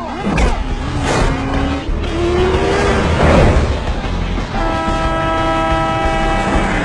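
Motorcycle engines revving and sweeping past in a chase. A bit past halfway a tanker truck's air horn sounds a steady multi-tone blast for about two seconds.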